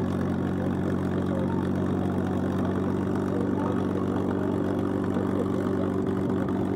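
P-51D Mustang's Packard Merlin V12 idling steadily on the ground, propeller turning.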